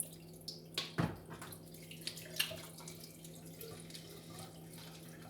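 Water splashing and dripping in a sink as hands are washed under the tap, with a sharp knock about a second in.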